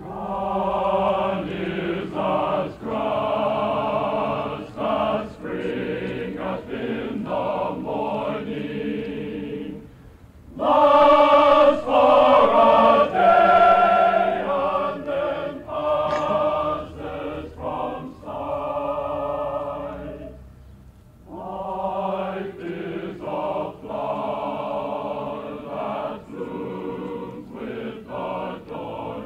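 High school choir singing in several parts, in phrases with brief breaths about ten and twenty seconds in; the loudest passage comes just after the first break.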